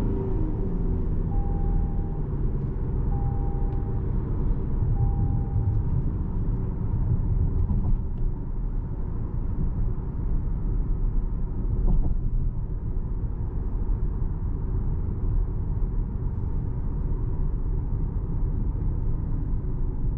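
2026 Toyota RAV4 2.5-litre hybrid driving, with a steady low rumble of road and drivetrain noise. Three short beeps sound one after another in the first six seconds.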